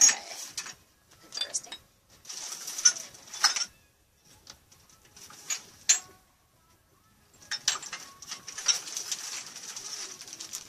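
Rustling and crinkling of bags and packaging as items are handled, in several short bursts with brief pauses between.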